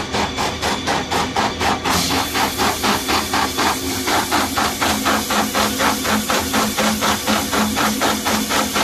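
Tissue paper log saw cutting machine running, its blade striking through the rolls in an even rhythm of about four cuts a second over a steady motor hum. A hiss joins about two seconds in.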